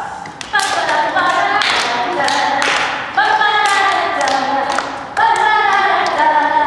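A group of children singing a song together without accompaniment, with long held notes in the second half. Claps and foot stamps sound through the first few seconds.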